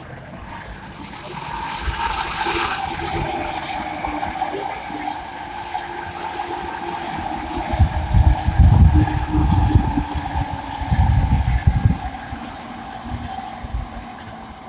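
Electric commuter trains running past on the tracks below, with a steady mid-pitched whine and running noise. A brief loud hiss comes about two seconds in, and a heavier low rumble from about eight seconds in.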